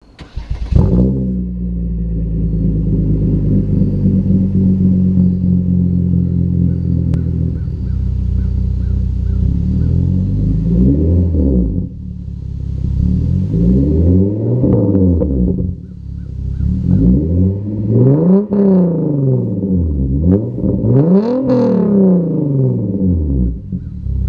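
The 3.8-litre V6 of a 2010 Hyundai Genesis Coupe, running through a muffler-delete exhaust of straight 2.5-inch pipe, starts up and settles into a steady idle. From about ten seconds in it is blipped several times, each rev rising and falling back to idle, the last one the highest.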